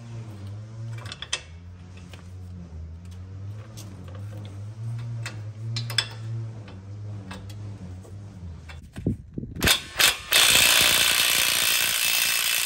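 Hand ratchet clicking in short strokes as the steering-arm (tie-rod end) nut is worked loose. About ten seconds in, a power tool with a socket on the nut runs steadily for about three seconds, spinning the nut off.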